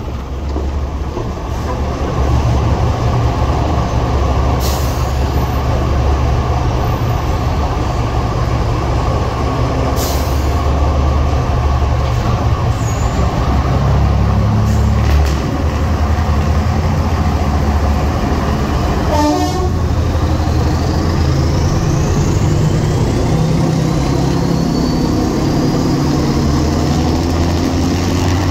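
Heritage diesel multiple unit running under power through a tunnel: its underfloor diesel engines and wheels on the rails give a loud, steady noise that swells about two seconds in as the train enters the tunnel.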